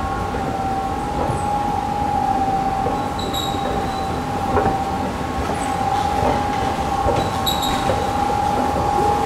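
Escalator running: a steady high whine over a continuous rumbling hiss, with a few short, faint high chirps.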